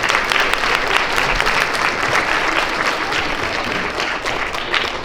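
Audience of young children and adults applauding, a dense patter of many hands clapping that tapers off near the end.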